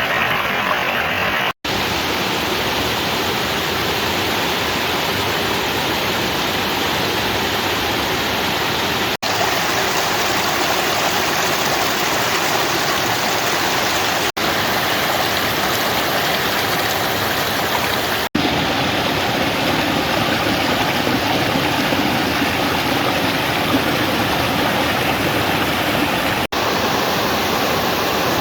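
Mountain valley stream rushing steadily, broken by a few momentary dropouts.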